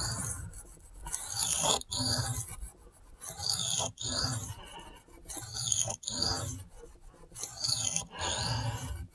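Spyderco Shaman's Cruwear steel blade scraped back and forth across a wet whetstone in freehand sharpening, a rasping stroke about once a second. The strokes are working the tip, where the new edge is not yet quite reaching.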